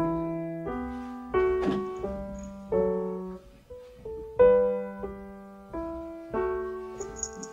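Solo piano background music: notes and chords struck about every two-thirds of a second, each ringing and fading before the next.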